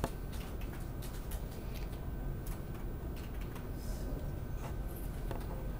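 Scattered light clicks of a computer keyboard and mouse being used, over a steady low room hum.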